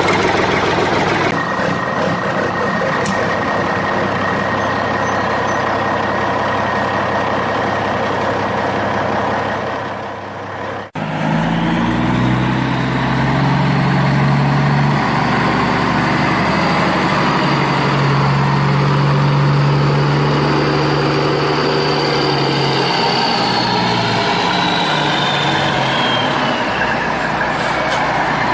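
Truck-like engine sound running steadily, broken off briefly about eleven seconds in, then resuming with a strong low hum and a high whine that drifts down near the end.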